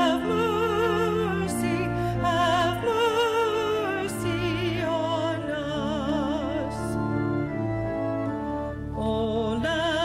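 A solo singer in a classical, operatic style, holding notes with wide, even vibrato over long sustained accompanying chords, with a brief lull between phrases near the end.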